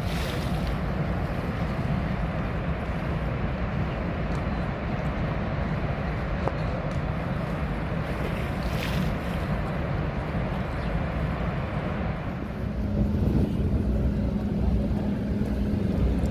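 Steady roar of the Rhine Falls' rushing water, with wind buffeting the microphone. Near the end a steady low motor hum joins in.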